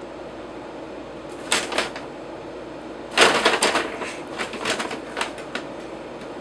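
Paper shopping bag crinkling and rustling as a kitten rolls and paws around inside it: a couple of crinkles about a second and a half in, then a loud burst of rustling about three seconds in that trails off into scattered crackles. A steady low hum runs underneath.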